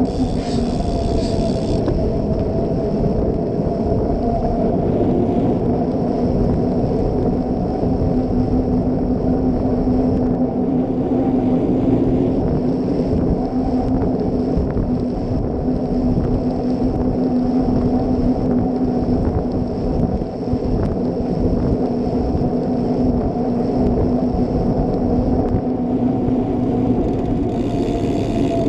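Cyclocross bike tyres rolling on asphalt: a steady road rumble with a low hum, picked up through a camera mounted on the bike's fork and chain stay.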